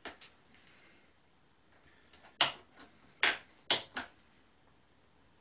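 A few short, sharp clicks and knocks from work on a motorcycle's handlebars and their clamp: one right at the start, then four in quick succession between about two and a half and four seconds in.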